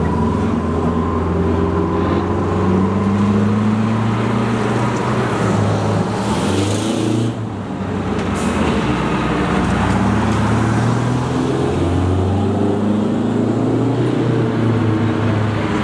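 Antique fire trucks driving past one after another, their engines running with a low steady drone. A hiss of air brakes about six seconds in.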